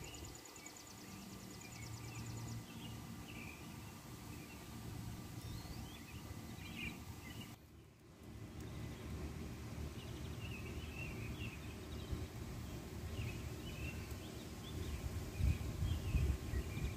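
Small birds chirping off and on over a low, steady outdoor rumble, with a fast, high ticking in the first couple of seconds. The sound drops out briefly about eight seconds in.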